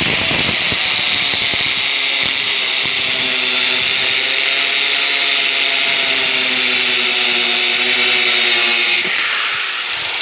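Angle grinder with an abrasive disc cutting and grinding down the steel shaft that sticks up from a seat swivel bearing: a loud, steady grinding over the motor's whine. The cutting stops about nine seconds in.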